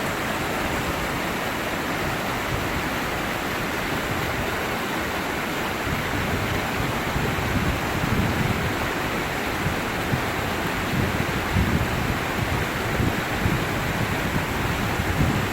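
Waterfall crashing into its pool close by: a steady rush of falling water.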